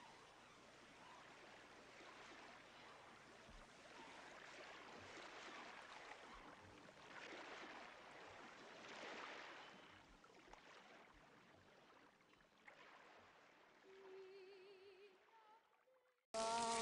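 Faint rushing water, swelling and fading in slow waves. A few faint wavering tones come in near the end. Then it cuts suddenly to much louder music.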